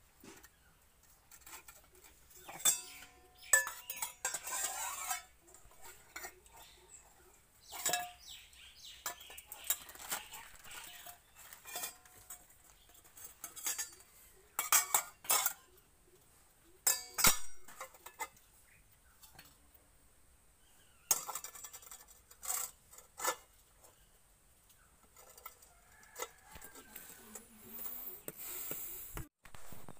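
Stainless steel bowls and a spoon clanking and clinking irregularly as a small child bangs and handles them, some knocks leaving a brief metallic ring.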